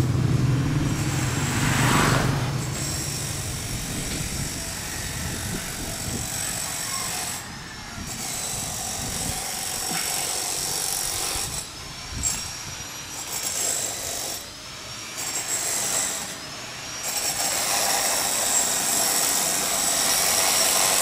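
Street traffic: a motorcycle's engine fades out over the first few seconds, then a steady high-pitched whine holds on, cutting out briefly a few times.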